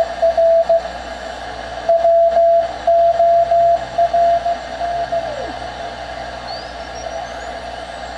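Morse code (CW) signal heard through a 40-metre direct-conversion receiver: a beat note of about 600 Hz keyed on and off over band hiss. About five seconds in, the note slides down in pitch as the receiver is retuned, and thin high whistles sweep up and then fall away.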